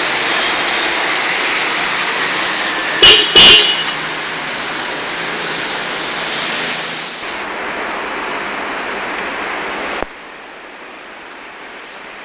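Horn fitted to a motorcycle giving two short, very loud toots about three seconds in, over a steady hiss. The hiss drops away with a click about ten seconds in.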